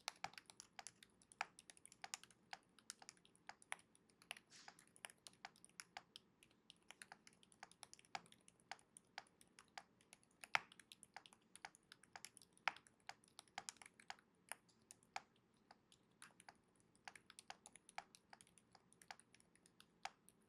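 Typing on a Keychron J5 TMR keyboard with factory-lubed Silent Red magnetic linear switches and PBT keycaps: soft, muted keystrokes, several a second in an uneven rhythm, with one louder keystroke about halfway through.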